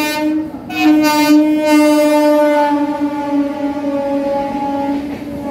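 Horn of a WAP7 electric locomotive: the blast breaks off about half a second in, then a second long blast starts and slowly drops a little in pitch as the locomotive passes, over the running noise of the train.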